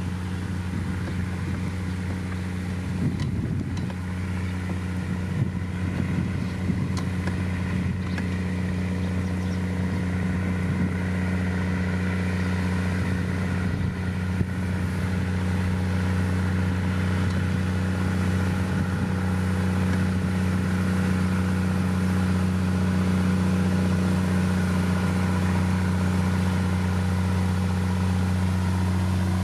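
A heavy road-building machine's engine running steadily at a constant speed, with some clattering over the first several seconds. It grows slightly louder toward the end.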